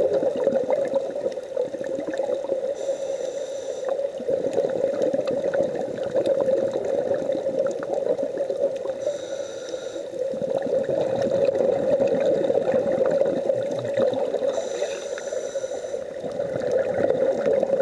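Underwater camera audio: a steady muffled rush of water, with three short bursts of hissing bubbles about six seconds apart, the breathing rhythm of a scuba diver exhaling through a regulator.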